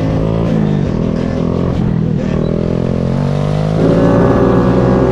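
Several motorcycle engines running at steady throttle, with shifts in pitch, growing louder about four seconds in.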